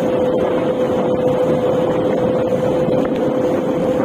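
Steady running noise of a vehicle on the move, with wind rushing over the microphone and a constant hum throughout.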